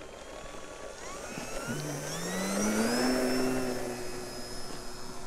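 FliteTest Storch RC plane's brushless electric motor (Flash Hobby 3530 1100kv) spinning a 10x6 APC propeller, throttled up for takeoff. The whine rises in pitch from about a second and a half in, is loudest about three seconds in, then fades as the plane rolls away down the runway.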